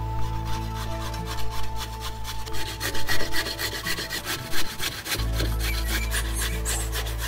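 Carrot being grated by hand on a flat metal grater: quick, repeated rasping strokes, several a second.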